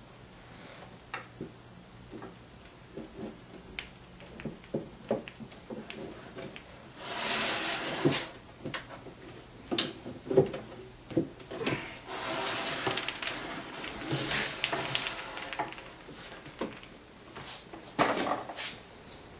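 Wooden pendulum machine being handled: scattered light knocks and clicks of wood and thin frame rods against the oak base, with stretches of wood sliding and rubbing, about a second long near a third of the way in, a longer stretch in the middle and a short one near the end.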